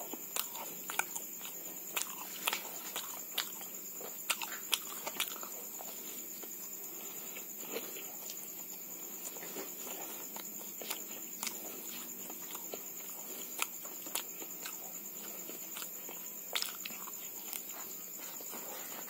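Close-up eating sounds of a man chewing a jalangkote, a fried filled pastry: irregular wet lip smacks and mouth clicks, coming in quick clusters at times, with the loudest ones in the first few seconds and again near the end.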